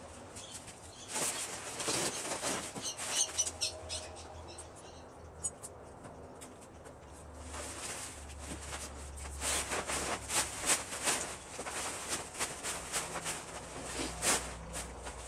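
Nylon tent fabric rustling and flapping as it is handled, in two long spells with a quieter stretch between them.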